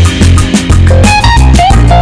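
Background music: a loud track with bass guitar, plucked guitar notes and a steady drum beat.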